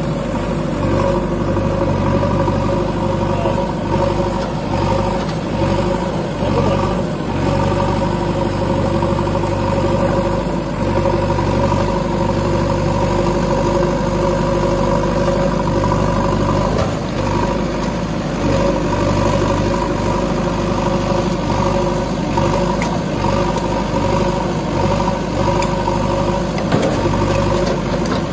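JCB 3DX backhoe loader's diesel engine running steadily as the machine works, with an even, unbroken hum.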